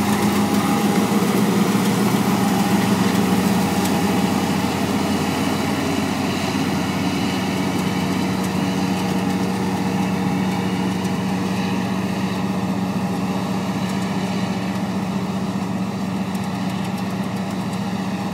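New Holland TC5070 combine harvester running steadily with an even engine drone and machinery hum while harvesting barley, slowly getting a little quieter.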